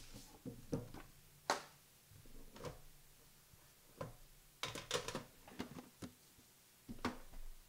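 Hands handling and opening a box of football trading cards: scattered light clicks, taps and short rustles of cardboard and wrapper, with a quick run of them about five seconds in.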